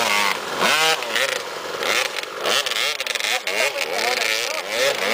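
Honda CR250 two-stroke dirt bike engine revving up and down repeatedly as it churns through a river crossing, with water splashing.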